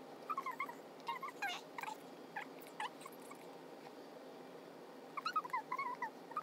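A small animal making short, quick squeaks and chirps in two runs, one in the first half and another starting near the end.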